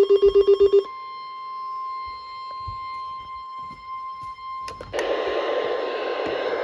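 A rapid pulsing electronic beep cuts off within the first second. It gives way to a steady single-pitch alert tone: the NOAA Weather Radio warning alarm tone that comes before a new warning broadcast. Radio static hiss and a few clicks join the tone about five seconds in.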